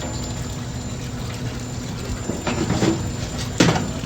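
GE washing machine running with water, a steady wash-and-hum sound, with a single sharp knock about three and a half seconds in.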